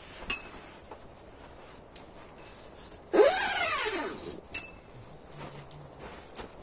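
One animal cry about three seconds in, rising then falling in pitch over about a second. A sharp, briefly ringing clink comes shortly before it and another just after it.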